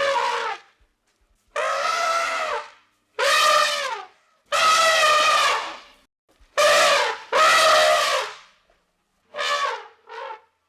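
Cartoon creature vocalizations of Sylvia the Zbornak from Wander Over Yonder: about eight short, pitched calls, each a second or so long and several sagging in pitch at the end, with brief silences between them.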